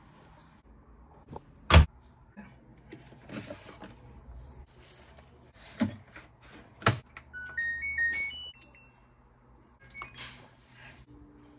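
LG front-loading washer-dryer being readied: its door shuts with a sharp bang, the detergent drawer clacks open and shut twice, then the machine plays a short stepped electronic jingle as it powers on, followed by a single button beep near the end.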